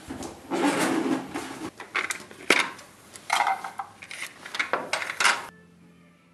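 Handling of a canvas tool bag and a plastic case of metal lock picks: a rustle, then a series of sharp clicks and light metallic clinks as the case is opened and the picks are handled.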